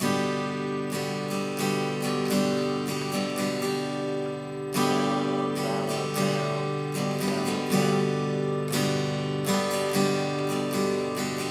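Guitar in standard tuning strummed slowly through the verse strum pattern, the chords G, A minor, C and D, each chord left to ring between strokes.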